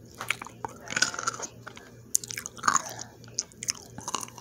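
A person chewing a crunchy sour pickle close to the microphone: a string of irregular crunches and wet smacking mouth sounds.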